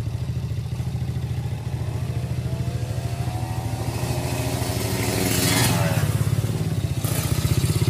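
Vintage red step-through motorcycle's engine running just after starting, with a steady pulsing idle. About four seconds in it briefly revs up and falls back, and it gets louder near the end.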